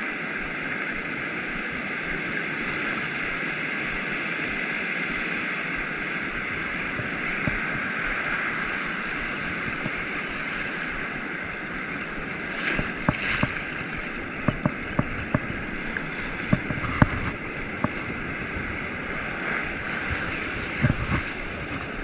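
Steady rushing of breaking ocean surf mixed with wind on the microphone, with a scatter of short clicks and knocks in the second half.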